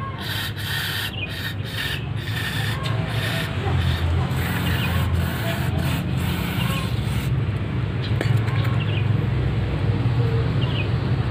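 Aerosol carburetor cleaner spraying in short hissing bursts into the passages of a carburetor body to flush out deposits; the spraying stops about seven seconds in. A steady low hum runs underneath.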